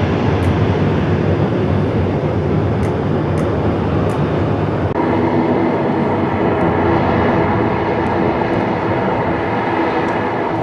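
Jet airliner engines at a distance, a steady rumbling roar. About five seconds in it cuts to an MD-11 trijet flying low with its gear down, its engines a steady whine with several held tones over the rumble.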